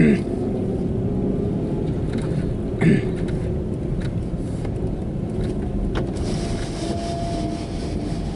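Car moving slowly, heard from inside the cabin: a steady engine and tyre rumble, with two brief squeaks, one at the start and one about three seconds in.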